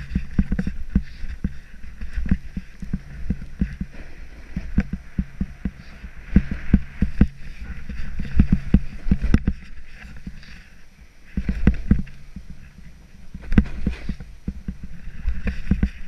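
Snowboard riding down steep, chopped-up snow: the board hisses and scrapes through the snow, with many small thumps over the bumps and the hiss swelling several times. Wind rumbles on the microphone throughout.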